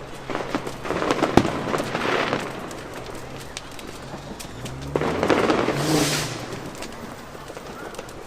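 Fireworks going off: a single sharp bang about a second and a half in, and crackling bursts around two seconds in and again around five to six seconds in. Under them plays music with a low, stepping melody.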